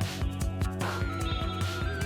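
Background music with a steady beat and a wavering high melodic line.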